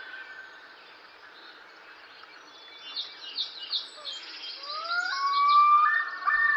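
Faint steady hiss of an outdoor ambience, with repeated bird chirps coming in about halfway through. Near the end, rising whistling glides lead into a steady held tone that grows louder.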